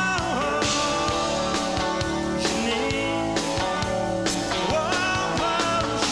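Live rock band playing: a drum kit keeps a steady beat under guitar and singing.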